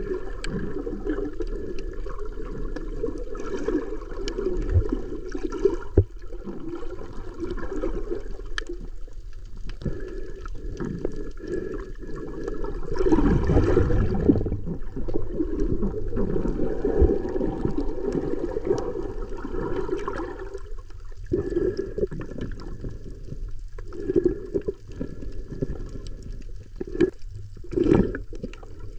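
Muffled sloshing and gurgling of shallow sea water heard through an underwater camera, swelling louder about 13 seconds in and surging a few times near the end.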